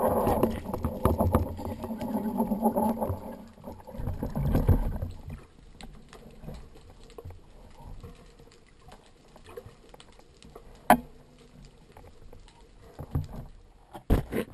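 Muffled water noise and knocking picked up by an underwater camera, with a dense rumble and clatter for the first five seconds or so that then drops to faint scattered clicks. One sharp knock comes about eleven seconds in, with a few more near the end.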